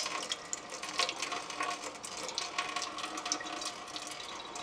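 Liquid from a can of tomatoes pouring in a thin stream into a metal bowl, trickling and splashing with many small drips, the stream thinning slightly toward the end.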